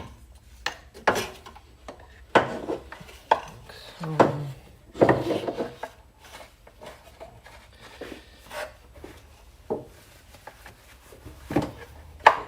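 Irregular knocks, clunks and short scrapes of metal parts and hand tools being worked in a car's engine bay, about a dozen spread unevenly across the stretch.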